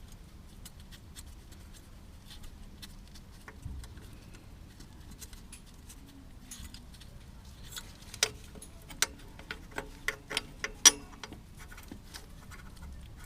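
Light clicks and taps of hand work on metal engine parts and tools, with a run of sharper knocks and clinks in the second half as a pipe is worked into place.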